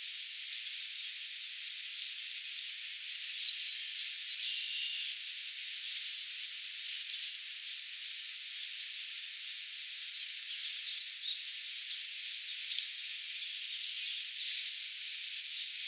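Outdoor ambience of a steady hiss, with a few quick series of thin, high chirps from small birds. The loudest chirps come about seven seconds in.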